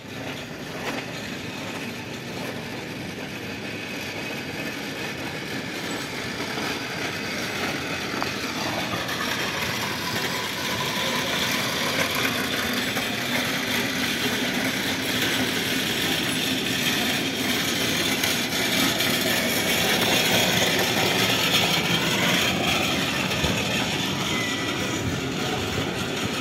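Steady street traffic noise of vehicle engines, growing slowly louder.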